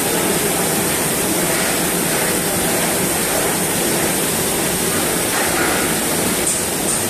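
Steady machinery noise of an automatic mooncake packing line running: conveyor belts and a horizontal pillow-type flow-wrapping machine, heard as an even, unbroken din.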